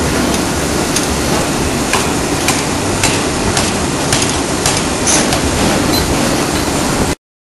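D51 ring rolling machine rolling a red-hot steel ring: a loud, steady industrial running noise with sharp knocks about twice a second. The sound cuts off abruptly near the end.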